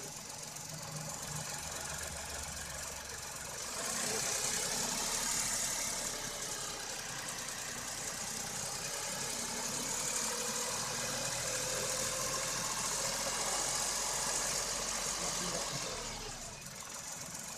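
Tata Altroz engine idling, then revved up about four seconds in and held at raised revs with its pitch slowly shifting, before dropping back to idle near the end.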